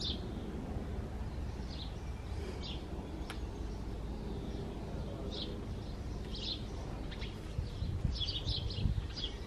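Garden birds chirping in short scattered calls, more often near the end, over a steady low outdoor rumble.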